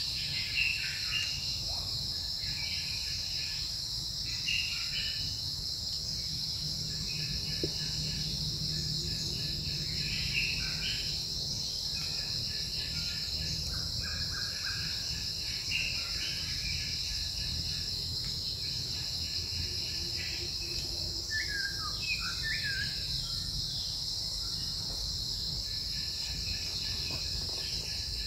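Forest ambience: a steady, high-pitched insect drone, with short bird calls scattered throughout and a cluster of them about three-quarters of the way in.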